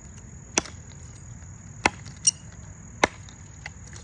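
Adler hatchet chopping into a small piece of firewood: three sharp strikes about a second and a quarter apart, with a shorter, higher crack between the second and third.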